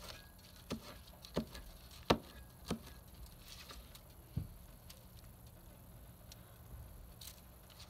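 Meat cleaver chopping green onions: four sharp chops about two-thirds of a second apart, then a duller thump a couple of seconds later.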